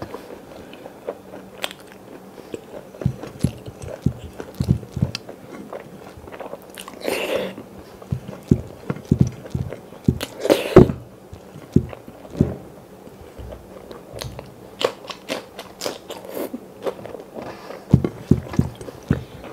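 Close-up eating sounds: chewing mouthfuls of rice and curry eaten by hand, with many irregular wet mouth clicks and smacks and a few louder moments.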